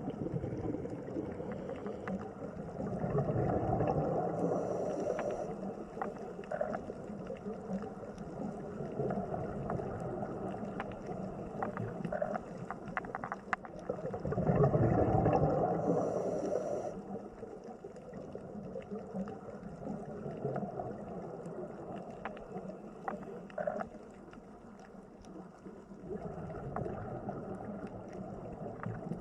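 Water sound that swells and fades roughly every ten seconds, with gurgling and scattered small clicks, like an underwater recording.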